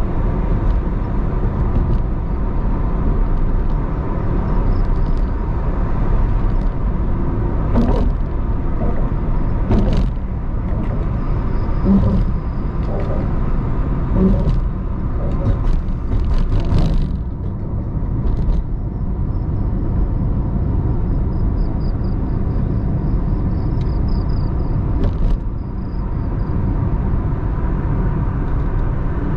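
A car on the move: a steady low road and engine rumble, with a few short sharp knocks or clicks between about 8 and 17 seconds in.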